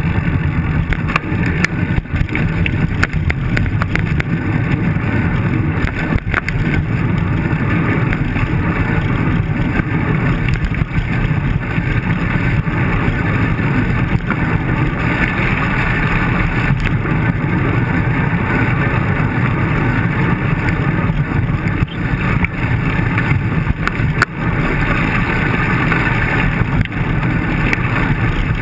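Steady ride noise from a handlebar-mounted camera on a road bike: wind buffeting the microphone and tyres on rough pavement, with frequent small clicks and rattles. Car traffic runs alongside.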